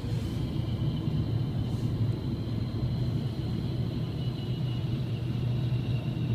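Steady low rumble of the Dodge Charger chase car rolling slowly, heard from inside its cabin, with a faint high steady whine above it.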